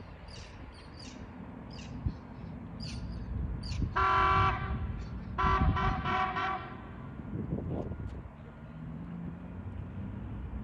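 Two horn blasts, a short one about four seconds in and a longer one just after, each a steady pitched tone. Birds chirp before them.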